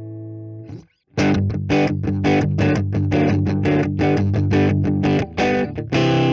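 Electric guitar played through an Orange Crush 12 combo amp, a small 12-watt amp with a 6-inch speaker. A held chord rings and is cut off just under a second in; after a short break, fast rhythmic strumming starts and keeps going.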